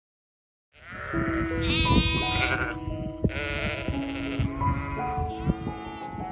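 Background music with sustained notes starts about a second in, with an animal calling over it several times, each call a short, high, wavering cry.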